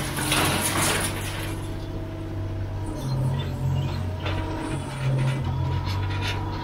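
Komatsu PW30 wheeled excavator's diesel engine running under hydraulic load while the bucket and thumb swing a grab of scrap metal, with the scrap rattling and clanking, heaviest in the first second and a half, then a few scattered clanks.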